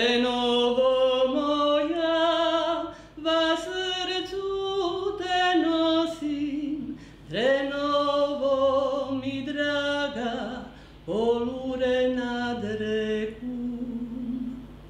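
A woman singing solo and unaccompanied, a song about Drenova sung in the local Čakavian dialect, in long phrases of drawn-out held notes with short breaths between them; the last phrase fades out near the end.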